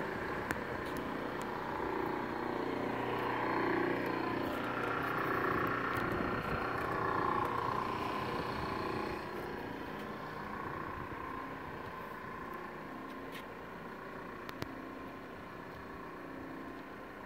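Scarab 285 jet boat running at low speed past the dock, a steady engine and jet-drive sound that swells as it passes and then fades as the boat heads away down the channel.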